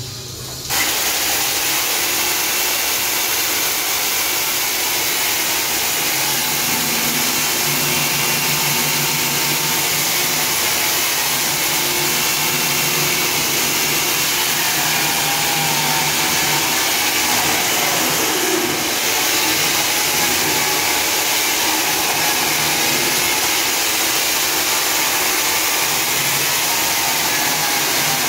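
Hand-held diamond chainsaw running and cutting into a concrete wall, a loud steady noise that starts about a second in and dips briefly near the middle.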